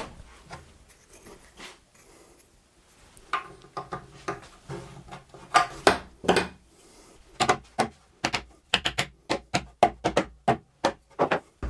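MDF pieces knocking against the MDF cabinet as they are pushed into place: a few scattered knocks, then a quick irregular run of knocks and clatters through the second half.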